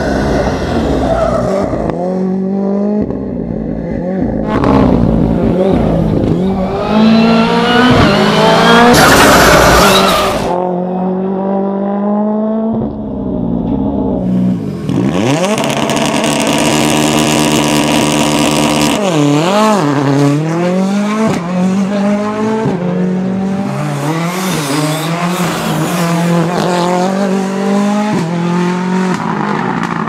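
Ford Fiesta R5 rally cars' turbocharged 1.6-litre four-cylinder engines running hard, revving up and falling back again and again through gear changes. There is a loud burst about a third of the way in and a stretch of held high revs near the middle.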